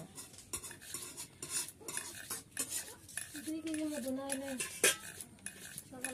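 Fingers rolling small pieces of flour dough against a carved wooden board: a continuous run of quick scratching, rubbing clicks.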